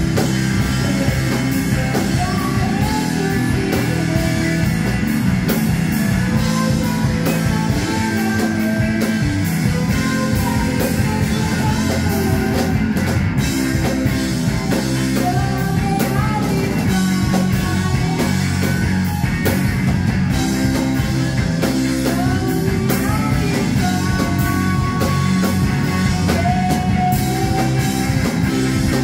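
Live rock band playing: electric guitar, electric bass and drum kit, with a saxophone among them.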